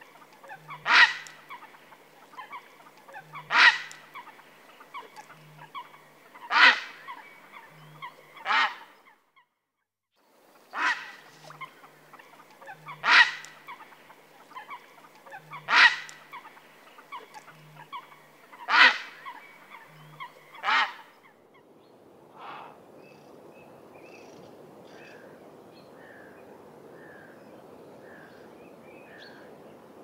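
A bird giving loud, harsh single calls about every two to three seconds, then a quieter run of short high notes repeated about twice a second over a steady outdoor hiss.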